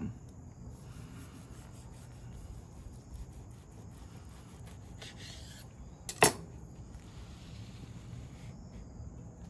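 Chef's knife sawing slowly through a toasted flour-tortilla burrito on a plastic cutting board, a faint scraping rustle, with one sharp tap about six seconds in.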